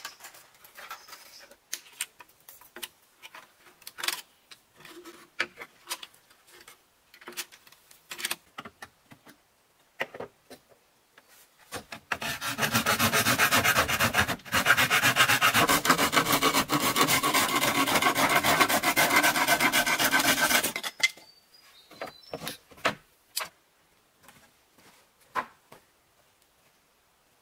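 A loud, steady rasping scrape on green bamboo, lasting about eight seconds and cutting off sharply, with scattered light knocks and clicks of bamboo being handled before and after it.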